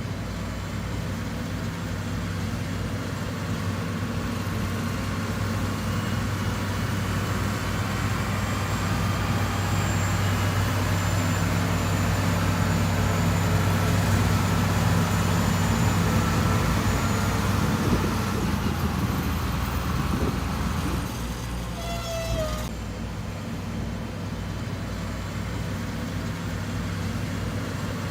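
Heavy diesel engine of earthmoving machinery running steadily with a deep hum, growing louder toward the middle and easing back about three-quarters of the way through. A brief wavering high note sounds over it near the same point.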